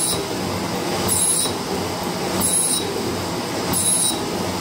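Metal shaper cutting steel with a single-point tool, the ram stroking back and forth with a steady mechanical run underneath. A short high-pitched screech comes once per stroke, about every 1.3 seconds, four times here.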